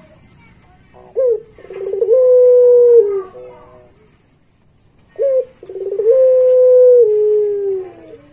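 Puter pelung, a long-voiced Barbary dove, cooing twice: each call is a short opening note, then a rolling burr that runs into a long held coo, stepping down in pitch near its end. There is a quiet pause of about two seconds between the two calls.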